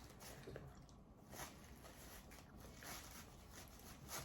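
Near silence, with a few faint, short clicks and soft rustles scattered through it.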